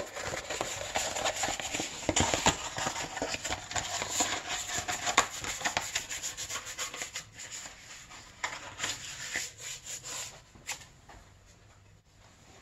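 Continuous rubbing and scraping with many small clicks from hand work on small parts at a workbench, dying away about ten seconds in.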